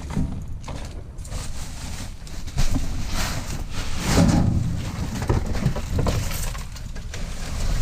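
Scrap metal pieces and junk being handled and rummaged through in a trash pile: irregular clanks, knocks and rustling over a steady low rumble.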